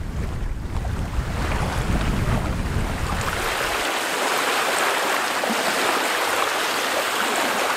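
Strong wind buffeting the microphone over choppy lake water. About four seconds in, the low rumble cuts off and wind-driven waves splashing and lapping carry on as a steady hiss.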